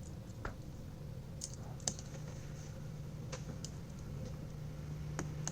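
Sparse light clicks and taps of small smartphone parts being handled and fitted as the mainboard and display frame go back in and the connectors are pressed home, over a steady low hum.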